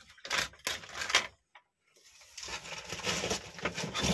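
Scrap television circuit boards clattering and scraping as they are handled and laid on a pile: several sharp knocks in the first second or so, a short pause, then a longer stretch of rattling and rustling.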